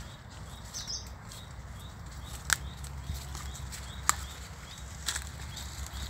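Footsteps through a palm grove over dry fallen leaves, with a low rumble of wind or handling on the phone microphone and two sharp snaps a second and a half apart. A bird calls faintly in a steady repeating pattern.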